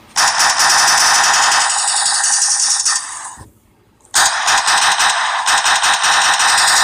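Automatic gunfire sound effect: a long burst of rapid shots that trails off about three seconds in, then after a short gap a second burst starts.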